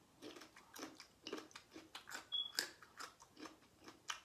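Close-miked mukbang chewing: a person biting and chewing crunchy food, with crisp crunches about twice a second.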